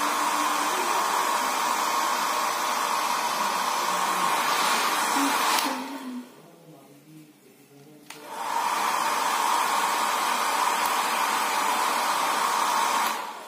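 Handheld electric hair dryer blowing, a steady rush of air with a steady whine running through it. It cuts out for about two seconds a little after halfway, comes back, and stops just before the end.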